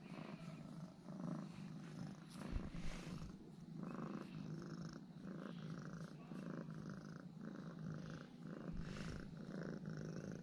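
Domestic cat purring steadily, with an even, repeating pulse.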